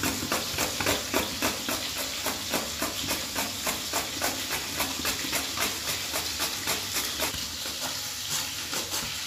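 Chayote being grated on a plastic hand grater: a steady rhythm of rasping strokes, about three to four a second, over the steady hiss of oil frying.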